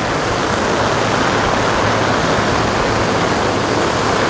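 Creek in flood, where several smaller streams join into one, rushing as a steady, loud torrent of water.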